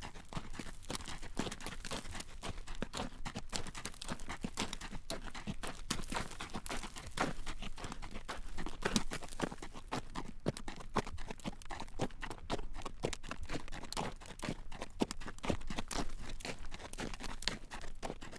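Horse's hooves clip-clopping on a road at a walk as it draws a carriage, a steady run of hard knocks.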